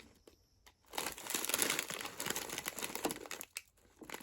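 Plastic snack packaging crinkling as it is handled, starting about a second in and lasting a couple of seconds, with a short pause and then more rustling near the end.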